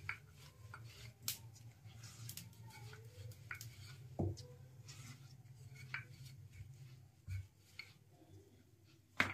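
Wooden rolling pin rolling out a stuffed paratha on a silicone mat: faint rubbing with scattered light taps and clicks as the pin is moved and lifted. A low steady hum underneath cuts out about seven seconds in.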